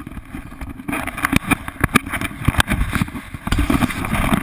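Irregular knocks and rubbing of an action camera being handled and turned around, over a low rumble.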